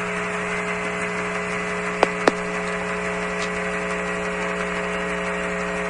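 Steady hiss and hum of the Apollo air-to-ground radio channel with no one talking, broken by two sharp clicks a fraction of a second apart about two seconds in.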